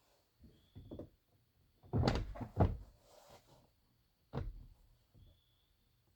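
Plastic car door trim panel being pressed and knocked onto its clips: a few faint taps, then a loud cluster of knocks about two seconds in and one more sharp knock a little past four seconds.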